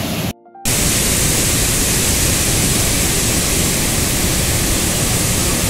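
Turbulent white water rushing loudly and steadily, with a brief dropout about half a second in.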